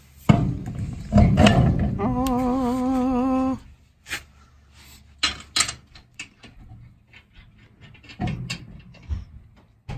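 A loud scuffing clatter, then a held whine that wavers in pitch for about a second and a half. After it comes a string of light metallic clicks as lug nuts are turned onto the wheel studs by hand.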